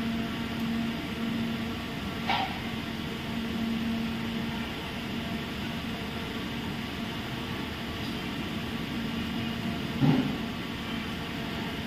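Steady mechanical hum over a bed of noise, with two short knocks, one about two seconds in and a louder one near the end.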